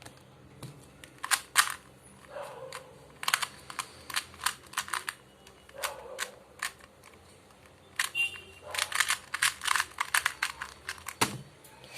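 2x2 Rubik's cube being turned fast in a speed solve: bursts of rapid plastic clicks, with short pauses between the bursts.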